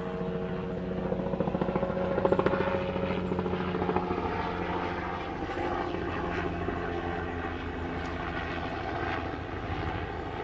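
A steady engine drone with a low hum, strongest in the first few seconds and slowly fading.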